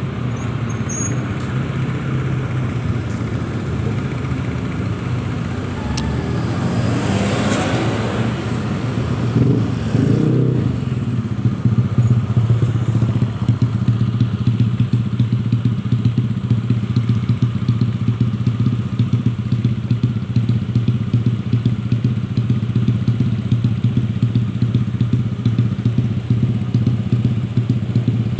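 Motorcycle engine running steadily, heard from the pillion seat, with a brief swell of noise about seven seconds in; from about twelve seconds on the engine note is even and pulsing.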